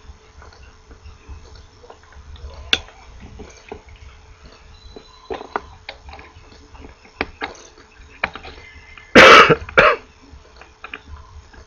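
Diagonal cutters snipping the excess component leads off a circuit board, small sharp clicks scattered through. About nine seconds in a person coughs twice, the loudest sound.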